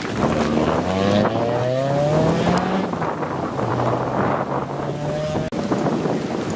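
VW Golf II rally car's four-cylinder engine accelerating hard away from a corner. The revs climb, drop with an upshift about three seconds in, then run on steadily. At about five and a half seconds the sound cuts abruptly to another rally car's engine, fainter and farther off.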